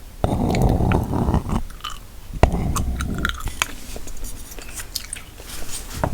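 Gum chewing close to a sensitive microphone: wet smacks and sharp mouth clicks, with a couple of longer, lower rustling stretches.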